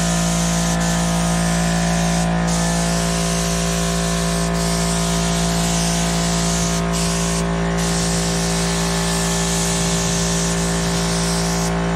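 Gravity-feed spray gun hissing as it sprays primer, the hiss breaking off briefly about four times as the trigger is let go between passes. Underneath is the steady hum of an air compressor running.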